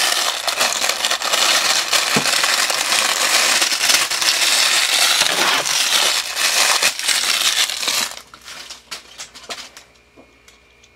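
Plastic packaging crinkling and rustling loudly as parts are unwrapped, stopping about eight seconds in, followed by a few light clicks and knocks.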